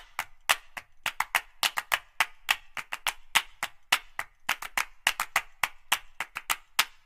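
A rapid, uneven run of sharp percussive claps, about five or six a second, with no voice.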